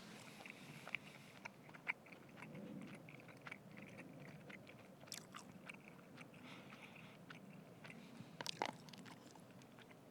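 Faint chewing of a mouthful of curry and tortilla close to the microphone, with scattered soft clicks and a louder cluster of them about eight and a half seconds in.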